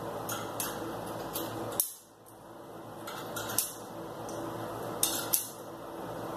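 Coins clinking and the metal coin slide of a coin-operated top-load washing machine clicking as coins are fitted into it: a few sharp metallic clicks over a steady background hum.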